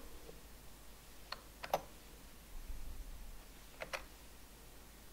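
Faint clicking at a computer: a pair of short clicks about a second and a half in, the second the loudest, and another pair just before four seconds in, over quiet room tone.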